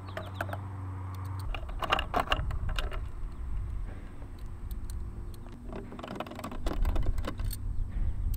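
Small metallic clicks and ticks of a T10 Torx driver and extension working out the screws of a car side-mirror housing and being handled with the loose screws, in two clusters, about two seconds in and again from about six to seven and a half seconds, over a low rumble.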